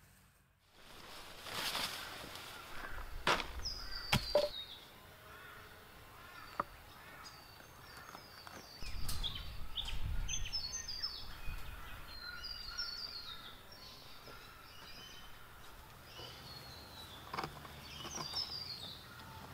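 Wild birds calling in the bush, a series of short, high, falling chirps repeated through most of the stretch, with a few sharp knocks of stones being set on stone and some low handling noise about halfway through.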